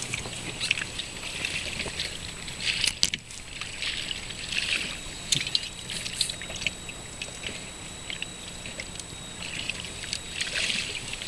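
Water slapping and lapping against the hull of an inflatable boat, in irregular splashy bursts with small clicks.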